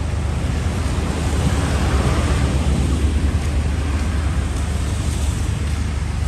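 Wind rumbling on the microphone over a steady outdoor hiss, which swells briefly about two seconds in.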